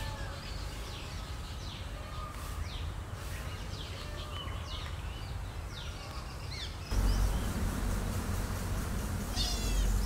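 Wild birds calling, with many short falling chirps and whistles over a low rumble. The sound changes abruptly about seven seconds in, and near the end comes a louder, squealing call.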